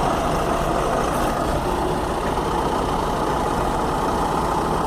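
Heavy diesel engines running steadily at an even pitch, with no revving or let-up.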